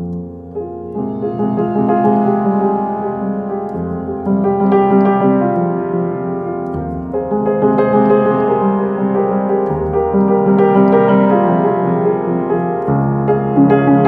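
Instrumental piano music with slow, sustained chords over a low bass note that changes about every three seconds, swelling up at the start.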